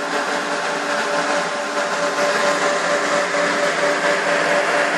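Cooling fans of a Screen Service 2.5 kW TV transmitter running: a steady whir of rushing air with a steady hum beneath it.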